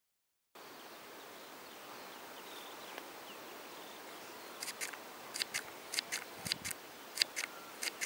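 Great spotted woodpecker pecking at peanuts through the wire mesh of a feeder: sharp taps in quick pairs, about six pairs from about halfway through, over a steady faint outdoor hiss.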